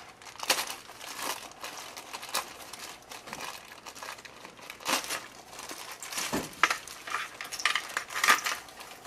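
Clear plastic bag of small electronic parts being opened and handled, crinkling irregularly with a few louder crackles.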